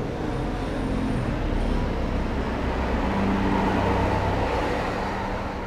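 Road traffic running steadily, with one vehicle's engine passing and loudest about three to four seconds in.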